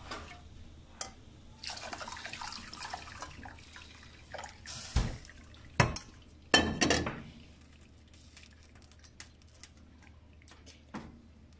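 Dashi stock poured from a pot through a stainless mesh strainer into a saucepan, then dripping through the bonito flakes as it drains. A few sharp metal knocks about halfway in are the loudest sounds.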